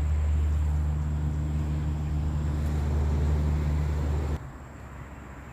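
A steady low mechanical hum, like an engine running, cuts off suddenly about four seconds in.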